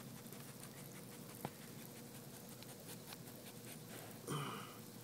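Faint background hiss with scattered soft ticks and one sharper click about one and a half seconds in, then a brief pitched sound a little after four seconds.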